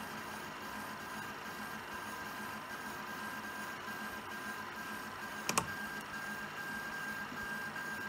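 Prusa SL1S resin 3D printer running, a steady mechanical whine in several tones, the highest one pulsing on and off, with a sharp double click about five and a half seconds in: the noise its owner calls abnormal.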